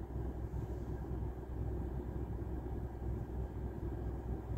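Car engine idling, heard from inside the cabin as a steady low rumble.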